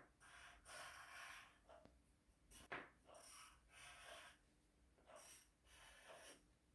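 Near silence, with faint short hissing strokes about seven times.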